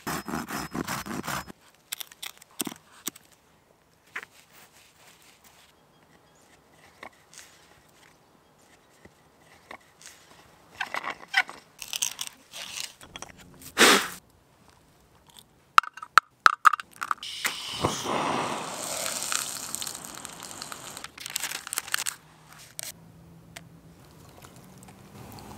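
Wood crunching and scraping as a drill bit and a hand auger bore into wood, coming in separate bursts with quiet gaps between them.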